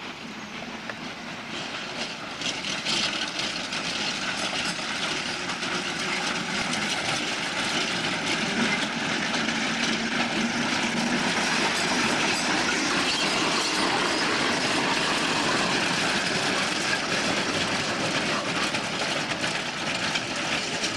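Small 18-inch gauge battery-powered trolley car running on its track, its wheels clattering over the rails. It grows louder over the first few seconds as it draws near, then runs on steadily.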